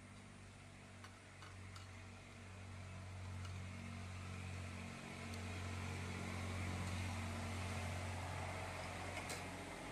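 A steady low mechanical hum with a hiss behind it, a little louder in the second half, and a few faint clicks.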